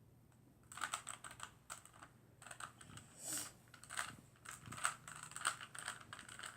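Plastic Rubik's Cube layers being turned by hand in quick irregular twists, a string of rapid clicks and rattles starting about a second in.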